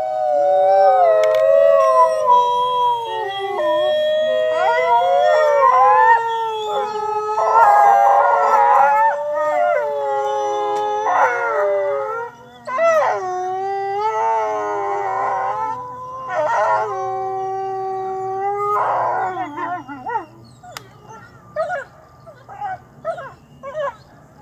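A pack of wolves howling in chorus: several long howls at different pitches overlap, gliding up and down. About twenty seconds in, the chorus breaks off into short, scattered yips.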